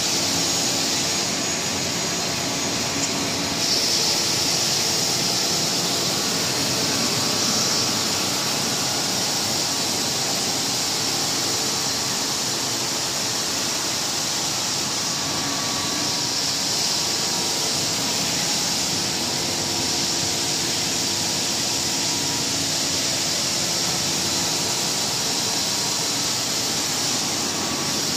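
Automatic wide belt sanding machine running: a steady, unbroken machine noise of motors and abrasive belts, with a strong high hiss over faint steady hums.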